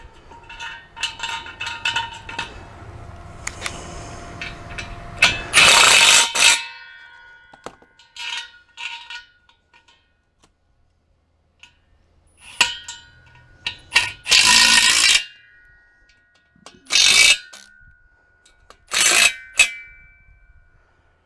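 Cordless power driver running in short bursts, driving star bolts through a wrought iron latch post into a brick pillar: five bursts of about a second or less, with a metallic ringing tone lingering briefly after several of them. Before the first burst, light metallic clinks of bolts and parts being handled.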